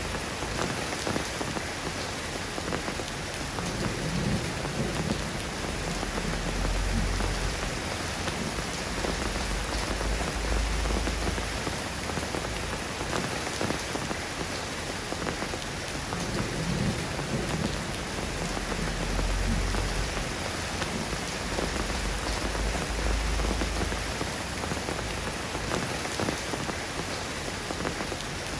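Steady rain pattering on surfaces, with low rumbles of distant thunder swelling up and fading several times.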